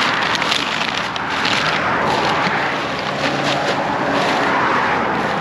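Road traffic going past, a steady rush of tyre noise that swells and fades, with scattered crackles up close.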